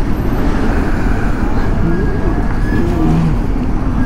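Steady rush of wind and road noise while riding a Royal Enfield Electra 350 motorcycle, with its engine and surrounding traffic running underneath.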